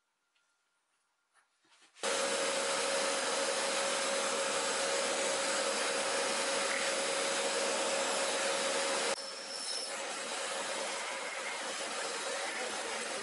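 Hollow-chisel mortiser cutting a mortise in wood, with a workshop vacuum running at the chisel to suck up the chips. A loud steady machine noise with a hum starts suddenly about two seconds in; about nine seconds in the hum stops and a lower, rougher noise carries on.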